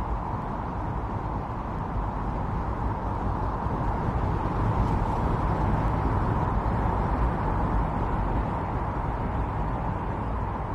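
Strong winter storm wind blowing steadily, a deep rushing noise that swells a little in the middle and then eases back.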